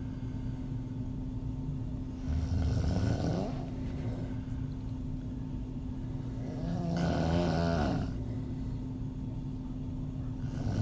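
A woman snoring with her mouth open: two snores of about a second each, roughly four to five seconds apart, with the next one starting at the very end.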